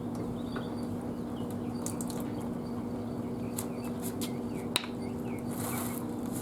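Small birds chirping faintly in the background over a steady low hum, with scattered light clicks and one sharp tick a little before five seconds in. A brief rush of noise comes near the end.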